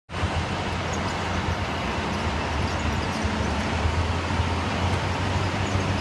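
Diesel engines of concrete pump trucks and ready-mix concrete trucks running steadily during a concrete pour: a constant low drone under an even hiss of site and street noise.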